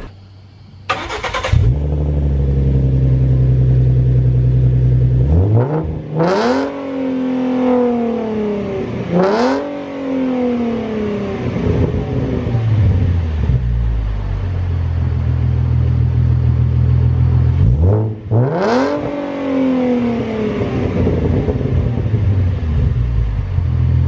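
Ford Mustang's 3.7-litre V6 exhaust through a Rev9 aftermarket axle-back: the engine comes in suddenly about a second in and settles to a steady idle, then is blipped three times, each rev climbing quickly and falling back to idle.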